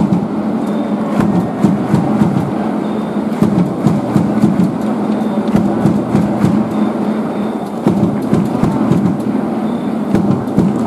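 Dense baseball stadium crowd noise, loud and unbroken, with many sharp claps scattered through it.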